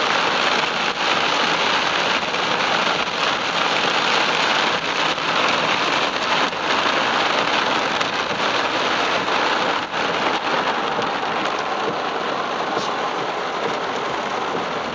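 Heavy rain falling on a car's roof and windshield, heard from inside the cabin: a steady dense hiss with many small drop hits.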